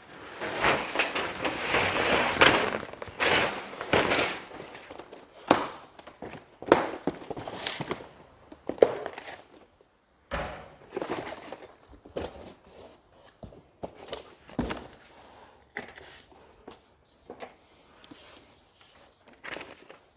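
Large cardboard box holding a flat-pack steel workbench being laid on the floor and opened: cardboard scraping and rustling, then a series of knocks and thunks as the box and the parts inside are handled.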